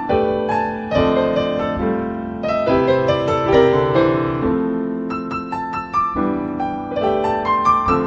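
Background piano music: a melody of struck notes over held chords.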